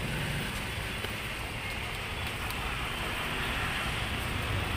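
Steady street background noise: passing road traffic and general outdoor hubbub, with a low rumble and no distinct event.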